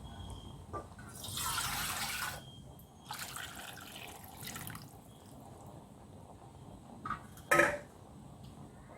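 Water flowing in two short bursts of about a second each, then one sharp knock near the end.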